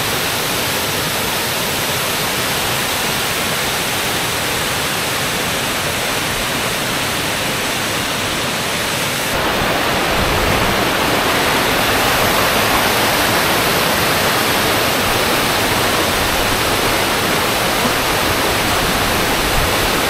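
Steady rush of a large waterfall's falling water, growing somewhat louder about nine seconds in.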